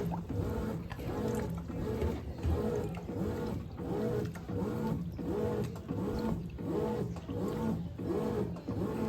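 Brastemp 17 kg washing machine agitating a packed-full load. The motor whirs back and forth in a steady rhythm, about one and a half strokes a second, its pitch rising and falling with each stroke.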